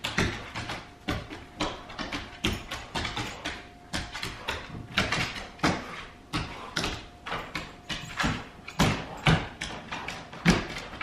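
A dog and a cat playing rough on a hardwood floor: irregular scuffs, taps and thumps of paws and claws on the boards, several a second.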